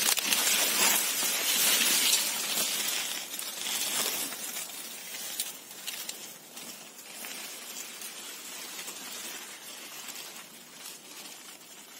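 Rustling and brushing of corn and squash leaves as someone pushes in among the plants picking squash blossoms, loudest in the first few seconds and softer after, with a few sharp clicks.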